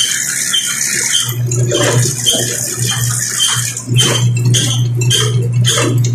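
Electric dough roller (dough sheeter) running as monay dough is passed between its rollers: a steady low hum with short high-pitched sounds repeating about twice a second.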